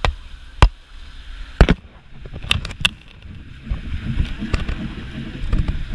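Outrigger fishing boat under way at sea: water rushing along the hull and outriggers with a low rumble that grows after about two seconds, broken by sharp knocks, five of them in the first three seconds.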